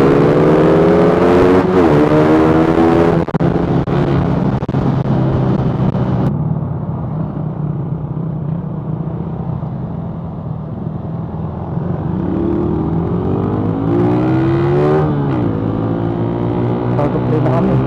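Motorcycle engine accelerating, its pitch climbing and dropping briefly at a gear change about two seconds in. It then eases off and runs lower and quieter for several seconds before climbing again, with another shift near the end, over steady wind rush on the microphone.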